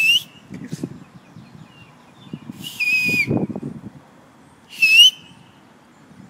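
A person whistling loudly to call someone far off: three sharp, breathy whistles, the first and last rising and the middle one held longer and dipping slightly at its end.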